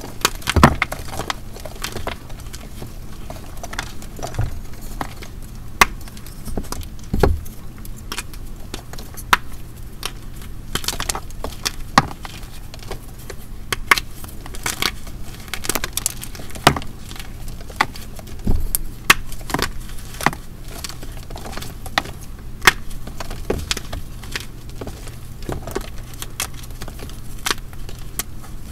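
Dried gym chalk heart (plain BSN chalk set with water) being crushed by hand, crumbling with many irregular sharp cracks and crisp crunches, the loudest right at the start.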